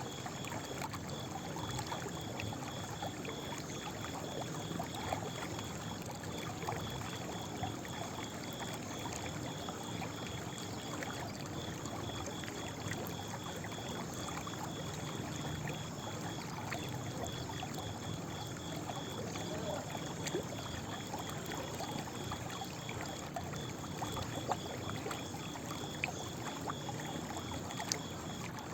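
Running water, a steady rushing flow, with a high, evenly repeated chirp about two to three times a second throughout and a few faint ticks.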